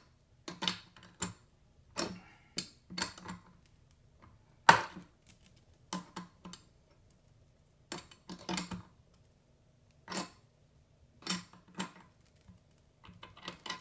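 Metal clicks and clinks of a wrench working the steel hose fitting on the base of a high-pressure hand pump, in scattered taps with short pauses, the loudest about five seconds in.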